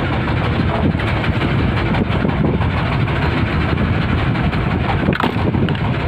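Small fishing boat's engine running steadily at idle, a constant low rumble, with wind buffeting the microphone.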